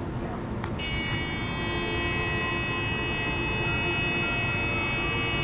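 Tecsun portable shortwave radio giving steady static with several high whistling tones once the station's transmitter has been switched off and the programme is gone. A click comes about a second in, and the whistles hold from there on.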